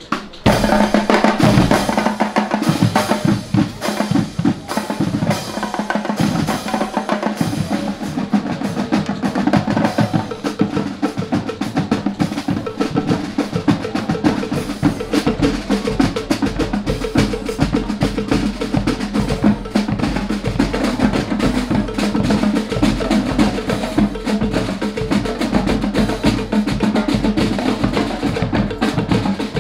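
Drum and show band performing: a marching percussion section of snare drums and bass drums playing fast, dense patterns and rolls, with held notes from the band underneath. The full ensemble comes in with a loud hit about half a second in.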